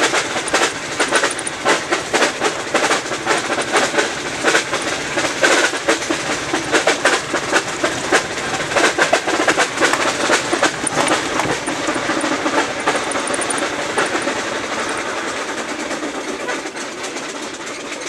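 Dense irregular rattling and clattering heard inside a Peugeot 306 as it rolls along a rough lane, dying down near the end.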